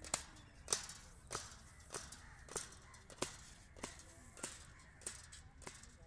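A steady run of sharp taps, about one every 0.6 seconds, ten in all.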